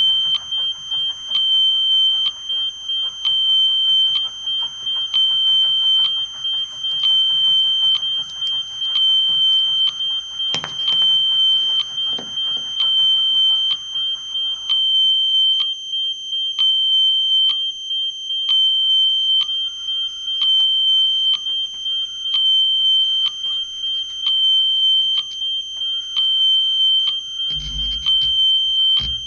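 Live electronics sounding a high-pitched, alarm-like beep at one unchanging pitch, pulsing rapidly in short, evenly repeating runs, with faint clicks and hum underneath. A low rumble comes in near the end.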